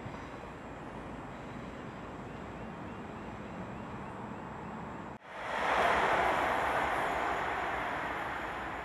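A low steady railway background rumble, then a louder diesel train running, which swells about five seconds in and slowly fades.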